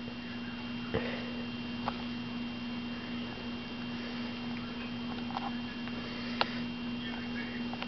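A cat biting and clawing at a plush stuffed toy: a few faint soft ticks and rustles over a steady electrical hum.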